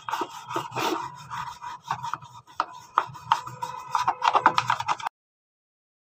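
Toothbrush bristles scrubbing the plastic detergent drawer of an IFB front-load washing machine, working off caked detergent residue in quick back-and-forth strokes that speed up near the end. The sound cuts off suddenly about five seconds in.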